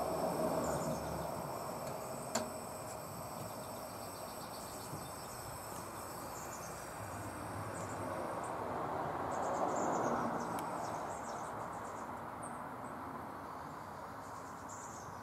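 Coleman 220K pressurized gas lantern burning: a steady hiss from the burner that swells about ten seconds in. A single sharp click comes a couple of seconds in.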